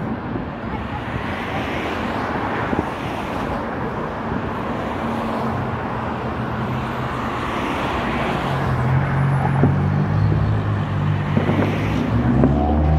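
Road traffic noise. A steady low engine hum comes in about halfway and grows louder near the end.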